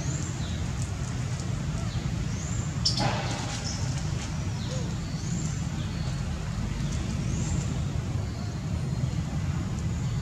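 Outdoor ambience: a steady low rumble, with short high chirps every couple of seconds and one louder call about three seconds in.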